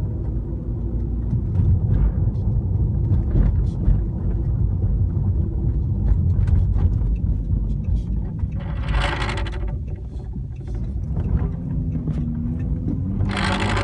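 Low road and engine rumble in the cabin of a moving 2013 Chrysler 300, broken twice by a brief rattle from the rear dashboard (rear parcel shelf): once about eight and a half seconds in, lasting about a second, and again near the end.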